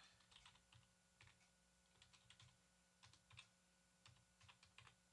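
Faint typing on a computer keyboard: short key clicks coming in small irregular clusters.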